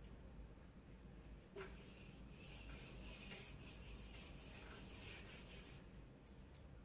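Faint rubbing of a marker pen drawing on a whiteboard, starting with a small tick about one and a half seconds in and stopping shortly before the end.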